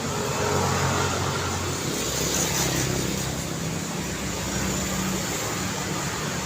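Road traffic: car engines running with a steady hum of tyres and road noise as vehicles pass, one going by a little louder about two seconds in.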